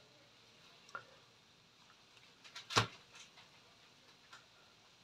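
Light kitchen handling noises: a few faint clicks and one sharp click nearly three seconds in.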